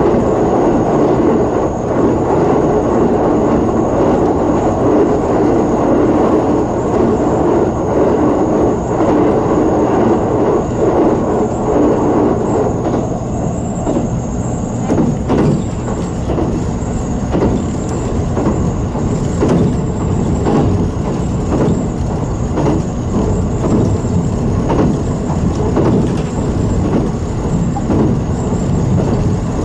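JR Kyushu 783 series electric train running along the line, with a steady rumble of wheels on rail. From about halfway, a run of irregular sharp clicks as the wheels pass over rail joints.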